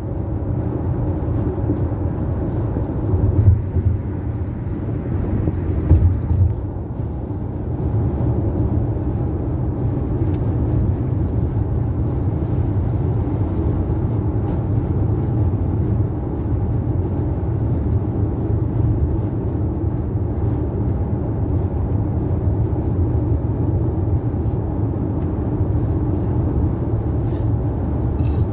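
Steady road noise inside a car cruising on a highway: a low rumble of tyres and engine, with a couple of brief louder bumps a few seconds in.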